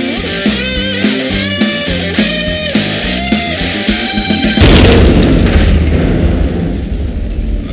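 Rock music with a melody line over guitar and drums, cut off about two-thirds of the way through by a loud deep boom like an explosion, which rumbles on to the end.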